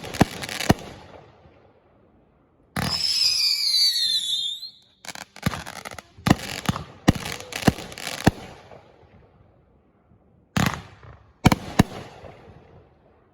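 Fireworks going off in clusters of sharp bangs and pops. About three seconds in, a whistling firework screams for nearly two seconds, its pitch falling.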